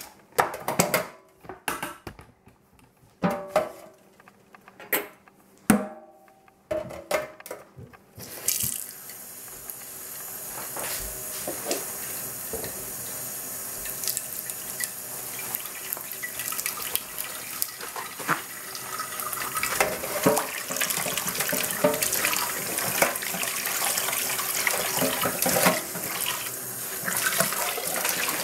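Stainless steel saucepan knocking against a stainless steel sink several times, then a tap running water into the saucepan with scrubbing and clatter as the pan is washed. The running water starts about a third of the way in.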